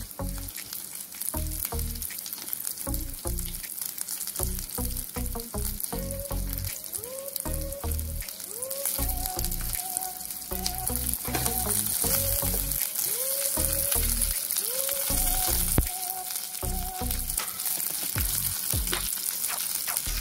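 Shallots, garlic, lemongrass and lime leaves sizzling as they sauté in oil in an electric hotpot pan, the sizzle growing a little stronger midway, over light rhythmic background music.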